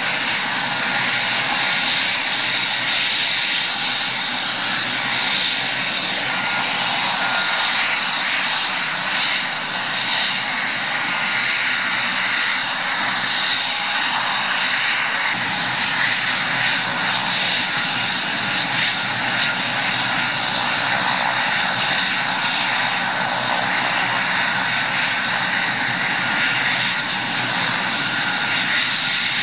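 AgustaWestland AW139 helicopter's twin turbine engines running steadily on the ground: a loud, even rush with a steady high whine that does not change.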